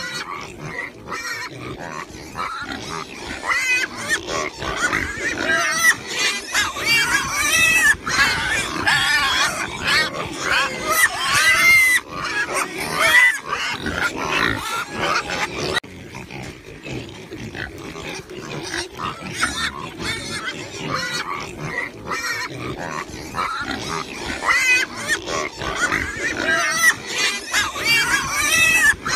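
A group of pigs grunting and squealing, with many high, wavering squeals crowding together in the middle stretch and again near the end.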